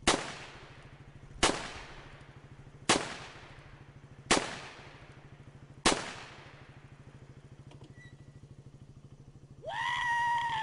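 Five gunshots about a second and a half apart, each ringing off with an echo, over a low pulsing hum. Near the end a high held call starts and bends down in pitch.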